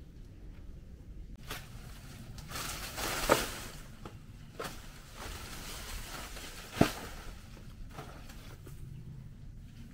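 Rustling with a few scattered sharp knocks, the two loudest about three and seven seconds in.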